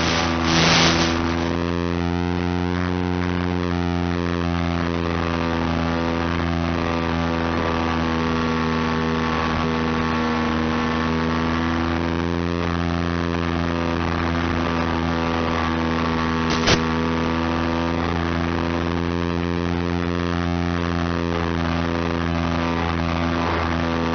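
Electric motor and propeller of an FPV radio-controlled plane humming steadily, its pitch wavering slightly, picked up on board. One sharp click about two-thirds of the way through.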